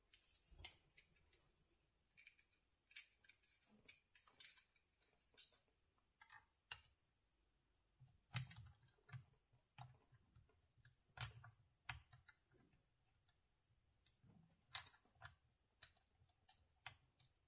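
Quiet, scattered clicks and soft knocks of a ring light being handled and fitted onto the top of its tripod stand, with a few duller thumps around the middle.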